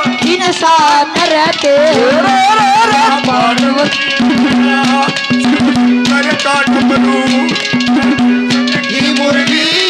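Live Haryanvi ragni music with no singing: fast hand drums playing under a wavering melody. From about four seconds in, a steady held note takes over.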